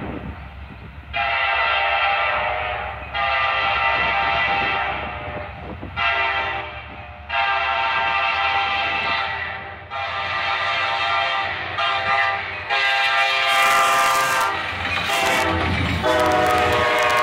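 Kansas City Southern diesel freight locomotive's air horn sounding a series of long and short blasts as the train approaches. The horn is held on as the lead locomotive passes close by with loud engine and wheel rumble, and its pitch drops just as it goes past.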